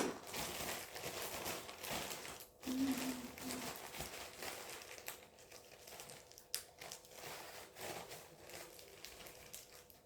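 Plastic parcel packaging crinkling and rustling as it is handled and pulled at, in irregular rustles with small clicks.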